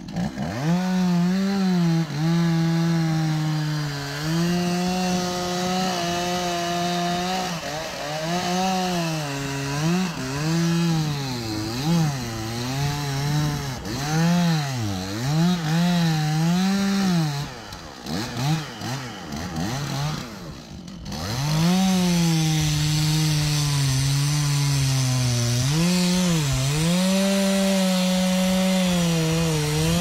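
Two-stroke chainsaw cutting into the base of a standing tree for felling. The engine pitch sags as the chain bites into the wood and climbs again as it frees, over and over. About two-thirds of the way through the saw briefly drops off, then settles into a steady cut.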